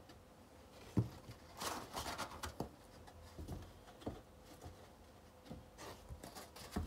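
Cardboard egg crates being handled and set into a large clear plastic tub: papery rustling and scraping with several light knocks against the plastic, the loudest knock about a second in.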